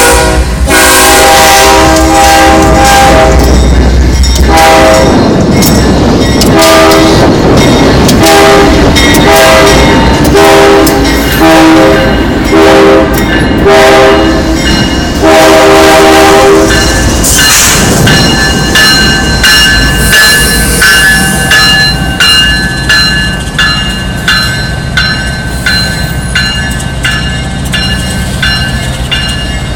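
Diesel freight locomotive's air horn, several notes sounding together, blown in one long blast and then a string of short blasts. About 17 seconds in, the horn stops and rail cars roll past with a steady clicking of wheels over the rail joints and a high wheel squeal.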